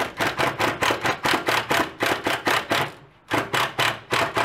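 Impact gun hammering in a fast, even run of strikes, about four or five a second, with a short break about three seconds in, as it drives an Allen-head cowl bolt tight into its jack nut.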